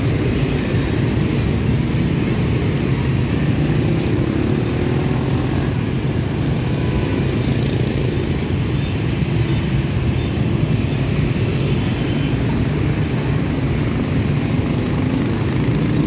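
Steady noise of dense city street traffic, mostly motor scooters and motorbikes passing on the road close by.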